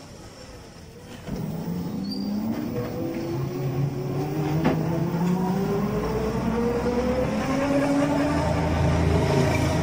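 Electric auto-rickshaw's 48 V 800 W BLDC motor and shaft drive pulling away. A whine rises steadily in pitch as it gathers speed, over a low road rumble, with one sharp click near the middle.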